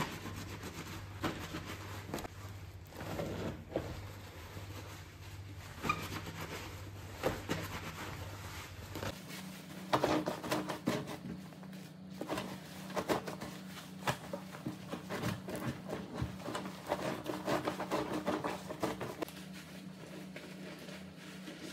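Wet fabric curtains being scrubbed, squeezed and lifted by hand in soapy water in a stainless-steel sink: irregular squelching and sloshing with scattered splashes.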